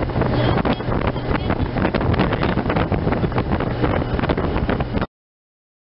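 Wind buffeting the camera microphone on a moving motorcycle, with the motorcycle engine running steadily underneath. The sound cuts off suddenly about five seconds in.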